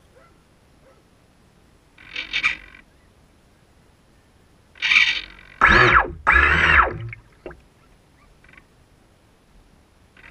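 RC model boat's motor and propeller given a few short throttle bursts. The loudest pair comes about six seconds in, the second rising and then falling in pitch.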